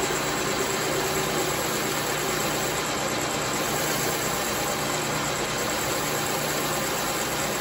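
Logan 922 metal lathe running steadily at a slowed spindle speed, a constant hum of motor and drive, during a grooving cut on a spinning steel shaft.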